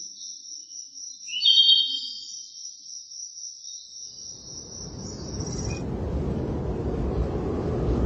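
A high, steady, pulsing insect-like trill, with a short louder bird-like chirp about a second and a half in. From about four seconds a low rushing noise like wind swells up, and the trill stops near six seconds.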